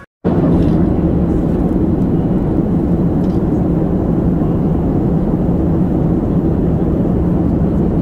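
Steady low drone of jet engines and airflow heard inside an airliner cabin, starting abruptly a moment in after a brief silence.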